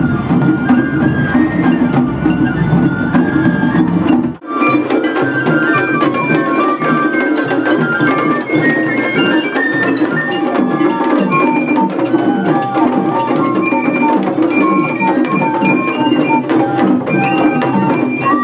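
Japanese festival hayashi music: a high bamboo flute melody of stepped, held notes over drums and light percussion. The music breaks off for an instant about four seconds in, and a low rumble under the first part is gone after the break.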